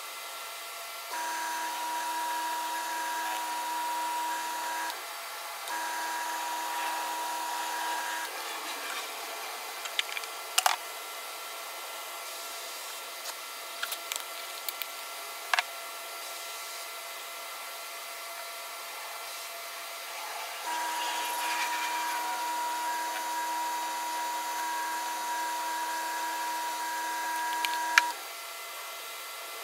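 Wood lathe motor running with a steady whine in three stretches, each starting and stopping abruptly, while a finish is buffed onto the spinning bowl. While the lathe is stopped there are a few sharp clicks of handling.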